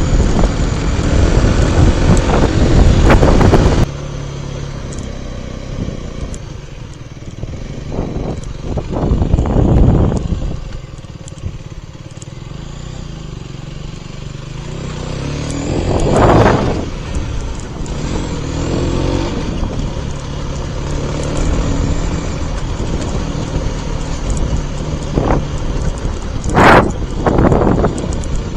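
Wind buffeting the microphone of a helmet-mounted action camera on a 2017 Mondial HPS 125i motorcycle, over the steady note of its single-cylinder 125 cc engine. The heavy wind rumble drops suddenly about four seconds in, leaving the engine plainer. Loud gusts of wind come back around ten, sixteen and twenty-seven seconds.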